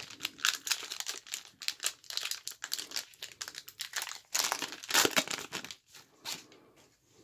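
Foil wrapper of a 1990-91 Skybox Series II NBA card pack crinkling and tearing as gloved hands pull it open, with the loudest run of crackles about four to five seconds in and fading near the end.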